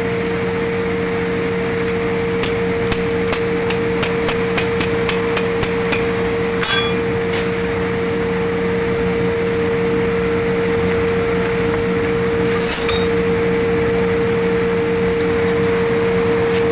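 A hammer tapping on metal in a quick run of about fifteen light strikes, about four a second, from about two seconds in, followed by a couple of metallic clinks. Under it runs a steady loud hum.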